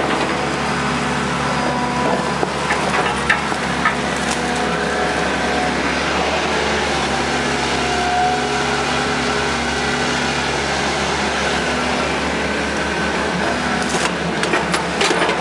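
Hitachi EX120 excavator's diesel engine running steadily under load with a steady whine as it swings and digs in mud. A few sharp knocks about three seconds in and a cluster of them near the end.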